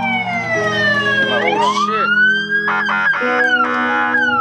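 Police car siren wailing, its pitch sliding slowly down and then sweeping quickly back up, heard from inside a car over music on the car stereo. Two short, harsh blasts come about three and four seconds in.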